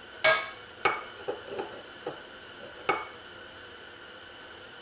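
Steel clutch plates of a 1955 Zündapp R150S scooter engine clinking against each other and the clutch hub as they are worked into line and set in place: a series of sharp metallic clinks with a brief ring, the first the loudest.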